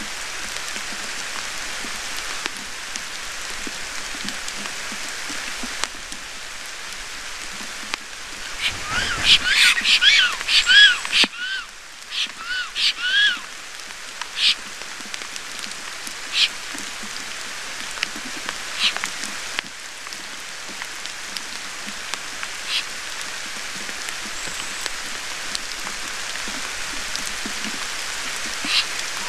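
Steady rain pattering on the forest and nest. About nine seconds in there is a brief rush as the male black stork lands, then a run of about ten short, upward-sliding wheezy whistles over four seconds: the black stork pair's greeting calls at the nest. After that come scattered sharp drip ticks.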